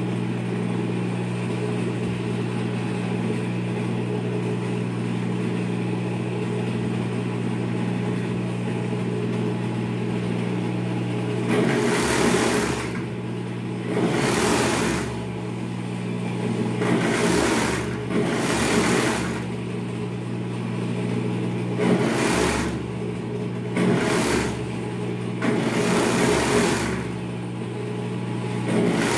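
Industrial overlock machine (serger) stitching a knit side seam in about seven short runs of a second or two each. Between the runs its table motor hums steadily, and the motor hum alone fills the first eleven seconds or so.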